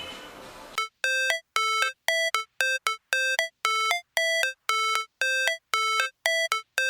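Electronic ringtone melody: a quick run of short beeping notes of one clean, bell-like timbre, some longer and some shorter, with dead silence between them. It starts just under a second in, as the tail of a violin piece fades out.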